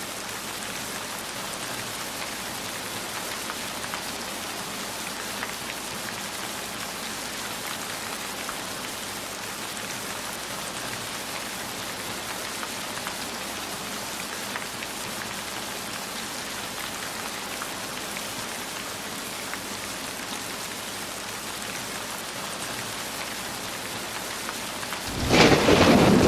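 Steady heavy rain, an even hiss of many drops on a surface. About a second before the end, a loud thunderclap breaks in suddenly and keeps rumbling.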